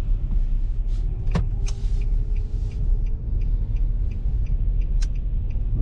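Car engine and tyre rumble heard inside the cabin while the car makes a U-turn. A turn-signal indicator ticks about three times a second from a little after two seconds in, and there are two sharp clicks.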